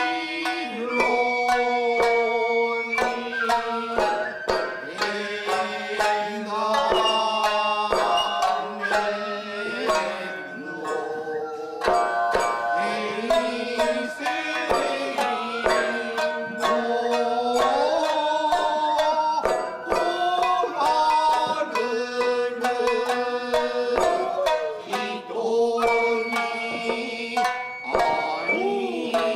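Tokiwazu-bushi music: rapid plucked shamisen strokes under a chanter's long held notes that slide from pitch to pitch.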